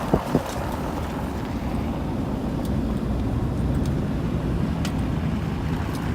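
A vehicle running with a steady low rumble, most likely the truck pulling away with the loaded trailer.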